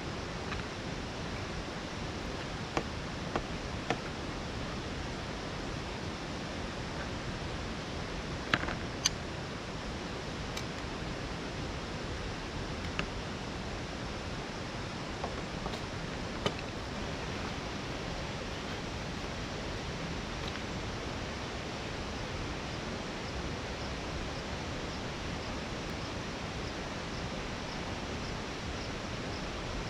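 Steady rushing noise of a waterfall, with a few brief clicks scattered through it.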